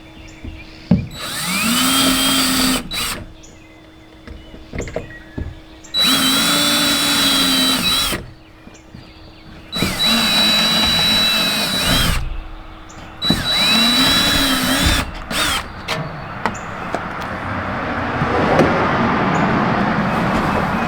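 Cordless power drill boring mounting holes for fold-out RV steps: four separate runs of about two seconds each, the motor whine rising at the start of each, then a longer, rougher stretch of drilling near the end.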